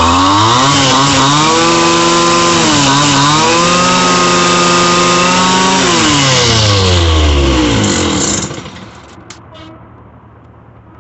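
Stihl FS 220 brushcutter's two-stroke engine, its carburettor freshly cleaned and tuned, running at high revs: the pitch climbs, dips briefly, climbs and holds, then falls and the engine sound drops away about eight seconds in, leaving a few light clicks.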